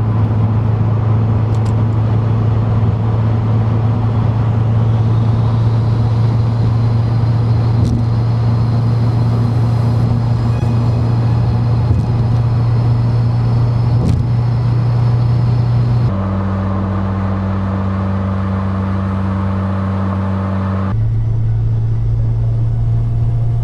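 A modded 2021 Subaru WRX driving, heard from inside the cabin: a steady low engine and exhaust drone over tyre and road noise. The drone shifts abruptly twice, about two-thirds of the way through and again near the end.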